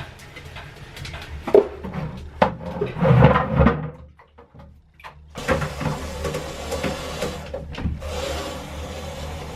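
A series of knocks and clattering from things being handled, busiest about three seconds in, then a steady low hum with a few more knocks after a brief pause.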